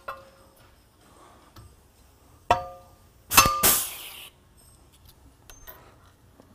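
Pneumatic pop rivet gun setting a large-flange blind rivet in a metal plate: a sharp crack with a metallic ring, then under a second later a second, louder crack followed by about a second of air hiss. A few faint clicks follow as the gun comes away.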